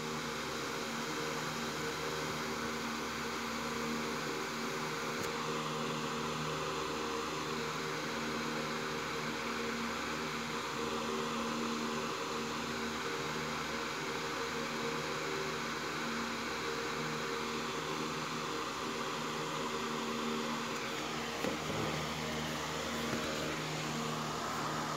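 A steady mechanical hum with hiss, holding several low tones without change.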